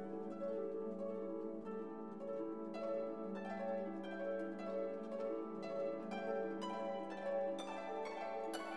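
Background music: plucked string notes, harp-like, over sustained held tones at an even, gentle pace.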